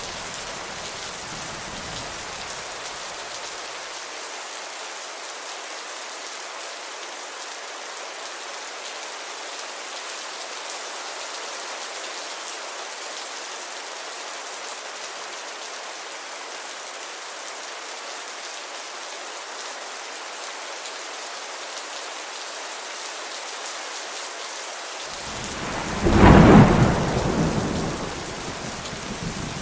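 Steady rainfall, with a low thunder rumble dying away in the first few seconds. Near the end a loud clap of thunder breaks in and rumbles for about two seconds before the rain carries on alone.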